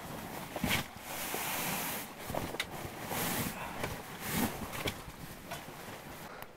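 Irregular rustling and crinkling of a sleeping bag and other fabric gear being handled, with scattered small clicks and knocks.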